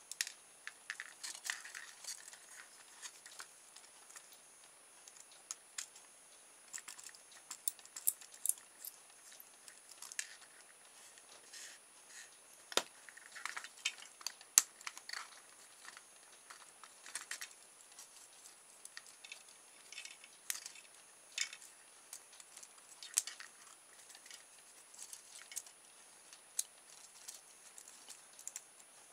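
Small clicks, taps and scrapes of a small screwdriver and fingers working on the frame and parts of a toy RC helicopter being taken apart, scattered irregularly with a few sharper clicks.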